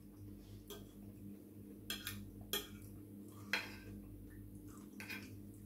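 A metal fork clinking and scraping against a plate while gathering pasta: about half a dozen short, light clicks, the loudest between two and four seconds in, over a steady low hum.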